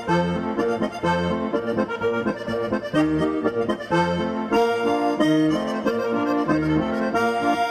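Accordion music: a melody over a steady, even bass-and-chord beat.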